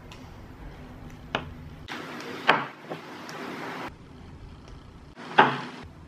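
Makeup brushes being set down on towels over a wooden table: a few sharp knocks of brush handles against the wood, with soft rustling of the towels between them.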